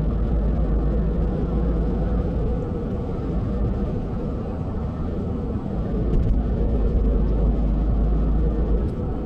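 Steady rumble of a moving vehicle heard from inside, with a deep low drone and road or track noise.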